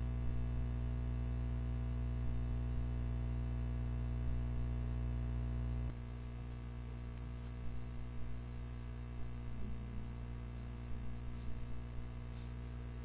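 Steady low electrical hum with faint hiss, the background noise of a screen-recording microphone, with no speech. About six seconds in, the hum drops suddenly in level and changes, where the recording cuts.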